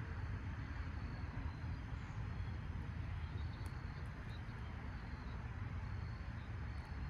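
Steady low outdoor background rumble with faint, short, high chirps now and then.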